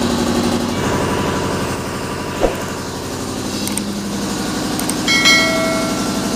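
A steady engine-like running drone throughout. Over it come a short knock, a few light metallic clicks, and a clang of steel tubing ringing for about a second near the end, as square steel sections are handled and laid out on a concrete floor.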